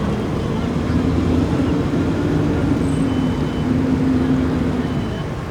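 An engine running steadily, its pitched hum holding from about a second in and easing off near the end.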